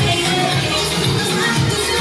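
Loud pop dance music playing, with a steady beat and bass line.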